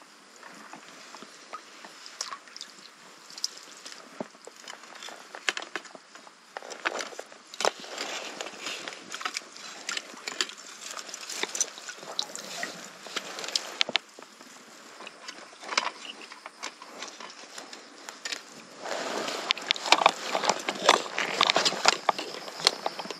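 Fishing gear being handled on a concrete seawall: scattered clicks and knocks, with water splashing and dripping from a landing net lifted out of the sea. Near the end the clatter grows denser and louder.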